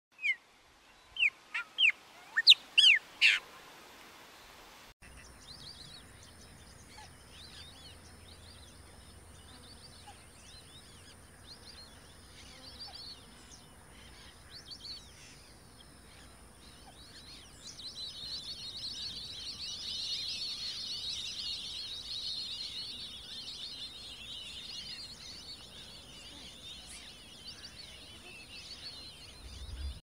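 Birds calling: a handful of loud, sharp calls in the first few seconds, then a chorus of many short, high chirps that grows louder and denser past the middle.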